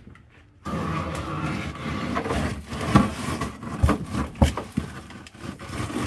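Plastic-bagged packs of beef mince rustling and scraping as they are packed into a freezer, with a few sharp thumps as packs are set down, starting suddenly about half a second in.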